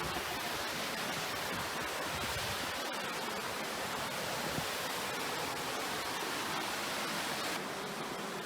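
Steady rush of water from a rain-swollen canyon stream and waterfall, an even hiss. It drops slightly and turns duller near the end.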